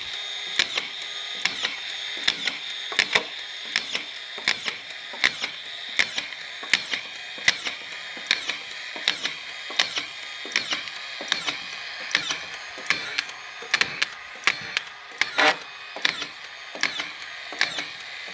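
DEWALT DCF620 18V brushless collated drywall screw gun driving screws one after another into plasterboard on timber. Under a steady high motor whine comes a sharp click from each screw as it seats and the plastic strip advances, about three every two seconds.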